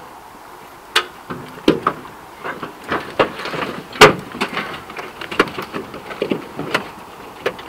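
Irregular knocks and clunks from the metal hull and roof hatches of an OT-90 armoured personnel carrier as people climb in through the hatches, with boots and gear striking the armour. The loudest knock comes about four seconds in.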